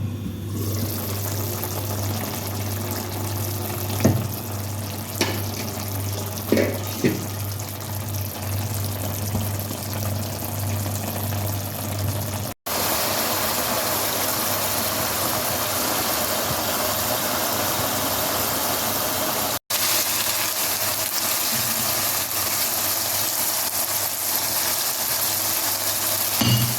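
Boneless chicken and capsicum frying in a pan with a steady sizzle, and a few sharp utensil knocks against the pan in the first half. A steady low hum sits underneath until the sound jumps about halfway through.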